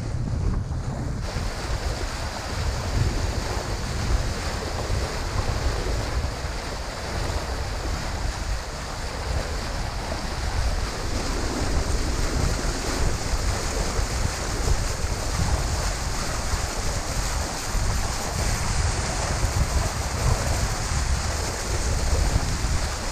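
Wind buffeting the microphone over the steady wash of water along a sailing yacht's hull as it sails. The hiss of the water brightens about a second in.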